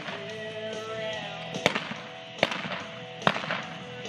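Three rifle shots from a galloping rider firing blank rounds, evenly spaced about 0.8 seconds apart, over background music.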